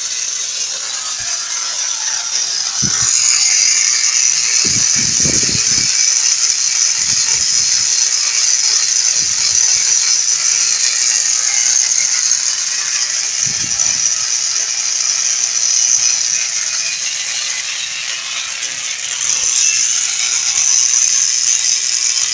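Homemade Tesla coil running and sparking: a loud, steady, crackling buzz with a strong hiss. A few dull knocks come a few seconds in.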